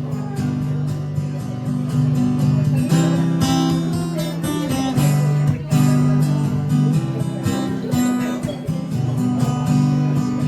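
Acoustic guitar strummed in an upbeat rhythm, playing a song's instrumental intro with no singing; the strumming gets louder and fuller about three seconds in.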